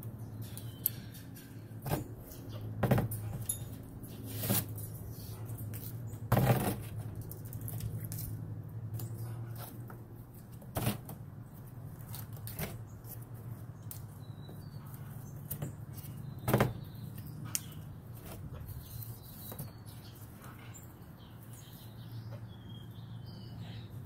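Galah cockatoo moving about on cardboard and tearing at it with its beak: irregular sharp taps, scrapes and rustles, a handful of them louder, over a steady low hum.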